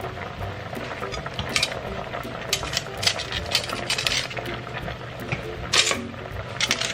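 Metal utensils clinking and clattering against a pot in a string of irregular knocks and clinks, over a steady low hum.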